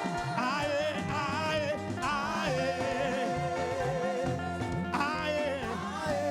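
Live praise band music with a lead vocalist singing in a wavering, melismatic line with strong vibrato, over a steady drum and bass groove.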